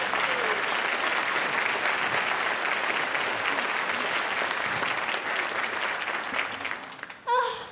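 Theatre audience applauding, a dense clatter of many clapping hands that fades away near the end, where a voice briefly speaks.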